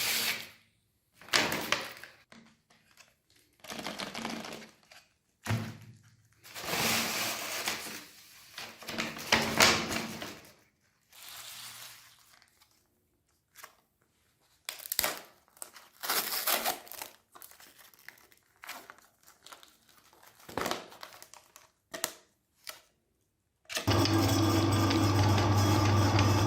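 Short bursts of handling noise, crinkling and clatter, with silent gaps between them; then about 24 seconds in, an electric meat grinder's motor switches on and runs with a steady hum.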